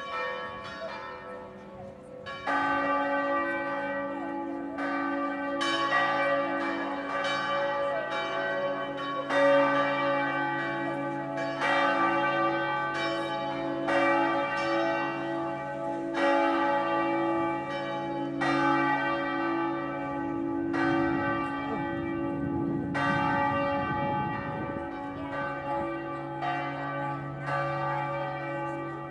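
Several church bells in a bell tower ringing together, their strokes overlapping in an uneven pattern, each leaving a long hum. A few lighter strokes open it, and the full ringing of several bells at once starts about two and a half seconds in.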